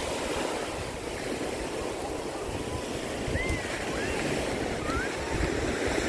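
Ocean surf washing up the beach in a steady rush of waves, with some wind on the microphone. A few faint high gliding calls come in about halfway through.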